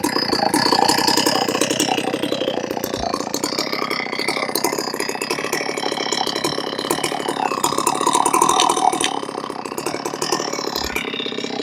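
Large chainsaw, fitted with a 56-inch milling bar, running at low revs: a rapid, even chatter of engine firing, steady in level.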